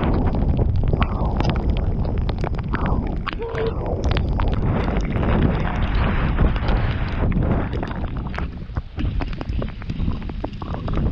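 Mountain bike riding down a wet trail: wind buffeting the action camera's microphone over a continuous rolling rumble, with frequent clicks and clatters from the bike going over rough ground. It eases briefly about eight seconds in.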